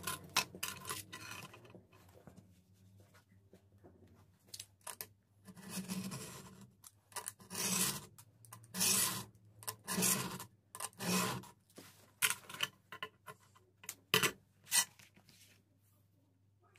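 A blade drawn through a stiff white sheet along a metal ruler: a run of rasping cutting strokes, each about half a second to a second long, with light clicks and knocks between them.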